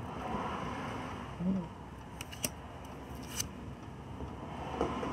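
Large matte-finish cards sliding against each other and being shuffled from hand to hand: papery swishes with a few light snaps and clicks. A brief low hum comes about a second and a half in.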